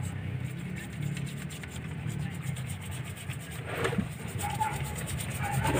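A small stiff brush scrubbing mud-like sludged oil off the rocker arms and valve springs of a Mitsubishi 4D56 diesel's open valve train, in quick repeated rubbing strokes.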